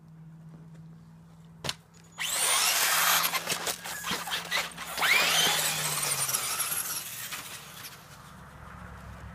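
Radio-controlled car's motor whining as it revs up and down, with the hiss of its wheels spinning on wet pavement and snow, from about two seconds in to about seven seconds in. A single sharp click comes just before.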